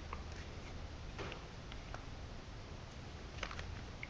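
Light plastic clicks and knocks from a Workzone 16V cordless drill being handled and turned over in the hand. A few scattered ticks, with a small cluster about three and a half seconds in, over a faint low hum.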